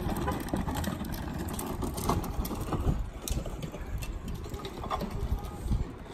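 Hard plastic ride-on toy wheels rolling over brick pavers: a continuous low rumble with scattered clicks and knocks.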